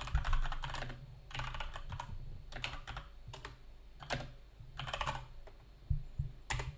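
Typing on a computer keyboard in short, irregular runs of keystrokes with pauses between them.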